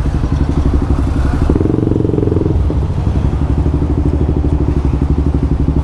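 Honda CBX 250 Twister's single-cylinder four-stroke engine running through a LeoVince aftermarket exhaust, with a steady, even throb. A brief extra steady tone sits over it for about a second, starting about a second and a half in.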